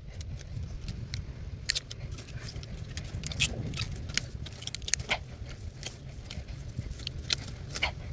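Irregular metallic clinks and jangles over a steady low rumble.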